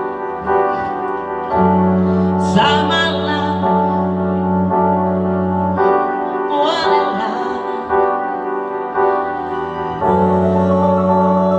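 Live band music: a woman singing over sustained keyboard chords and long held low notes.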